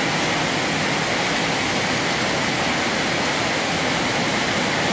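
Heavy rain pouring steadily onto a flooded street, a dense, even hiss of rain hitting standing water.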